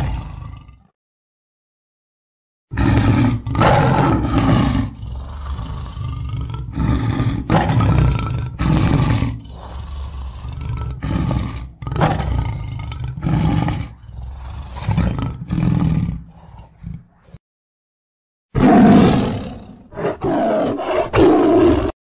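Lion roaring: one roar fades out at the start, then after a short pause comes a long, broken series of roars and grunts lasting about fifteen seconds, and after another pause one more roar near the end.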